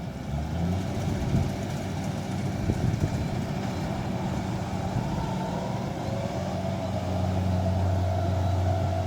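Kubota DC-70 combine harvester's engine running steadily, a low hum that gets louder about seven seconds in, with a faint rising whine under it while the machine unloads grain.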